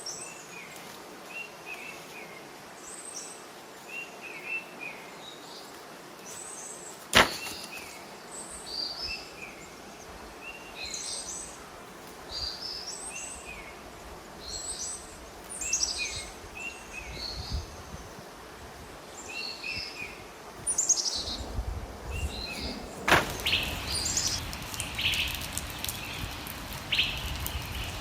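Forest birds singing: repeated short chirps and trills. A sharp knock cuts in about a quarter of the way through and again later, and a low rumble starts in the last quarter.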